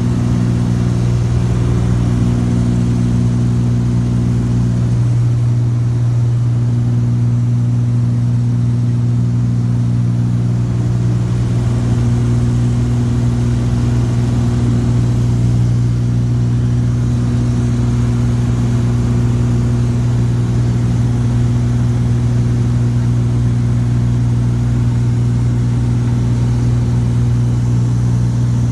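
Twin Cessna T303 Crusader's two piston engines and propellers in cruise, a loud steady drone heard from inside the cabin. One of the higher notes in the drone fades out and comes back a few times.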